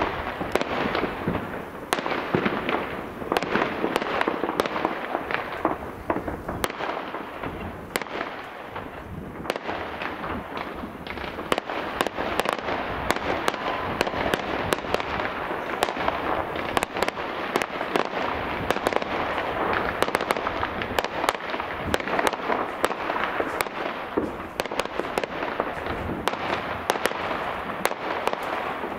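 Fireworks going off without a pause: a dense, unbroken run of bangs and crackling from many aerial shells bursting, several every second.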